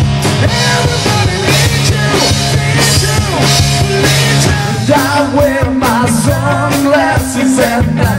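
Live rock band playing: electric guitars over a drum kit. About five seconds in, a wavering melodic line comes in over the low steady chords.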